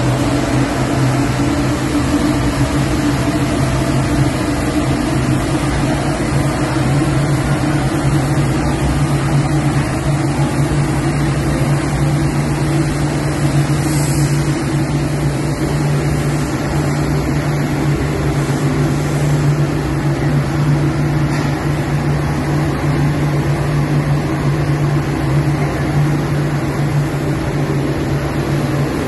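Large commercial drum coffee roaster running with a loud, steady hum from its motors and fans while freshly roasted beans pour out of the drum into the cooling tray and are stirred by its rotating arms, with a steady hiss of moving beans.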